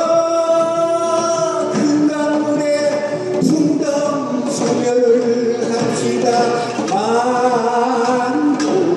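A man singing a Korean traditional song unaccompanied, in long held notes that bend and slide in pitch, with a few scattered percussion strikes.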